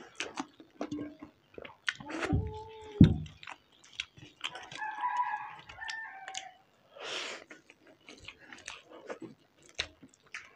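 Two people eating instant noodles by hand, with close wet chewing and many small mouth clicks. A rooster crows for about two seconds near the middle. A brief, louder low voiced sound comes about two seconds in.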